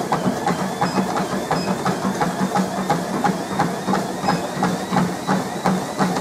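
Running footfalls on a treadmill, about three strikes a second, over the steady hum of the treadmill's motor and belt as the speed is raised to near 14 km/h.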